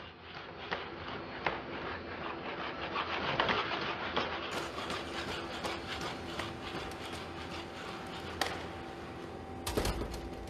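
Boston Dynamics Spot quadruped robot working a door with its arm and walking through: a steady rasping whir of its motors with scattered clicks, and a loud knock near the end as the door shuts.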